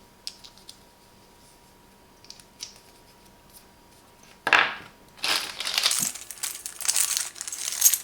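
Plastic accessory packaging crinkling and rustling as it is handled, starting about halfway through after a few faint clicks.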